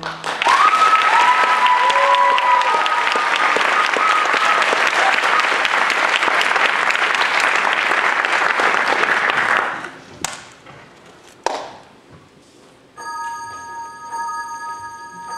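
Theatre audience applauding, with a few cheers and whistles early on. The applause dies away after about ten seconds, a couple of knocks follow, and then sustained musical tones come in near the end.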